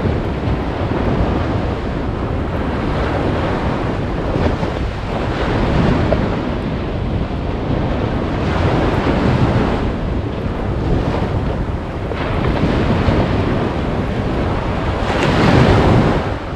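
Surf washing onto a sandy beach, with wind buffeting the microphone. The noise swells and ebbs every few seconds, loudest near the end.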